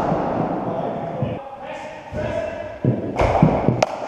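Near the end, a thud and, a moment later, a sharp crack of a cricket ball off the bat as a shot is played; voices in the hall carry on behind.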